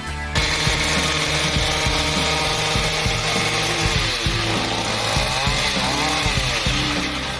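Motorized trimming tool running hard, cutting in abruptly. Its engine pitch sags and climbs back several times around the middle, as under load while cutting.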